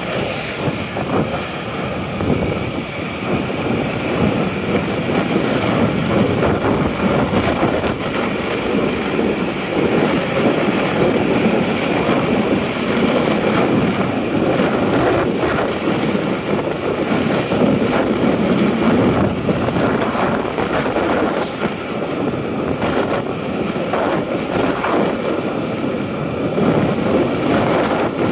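Steady wind rush over the microphone, with engine and tyre noise from a motorbike moving along a road.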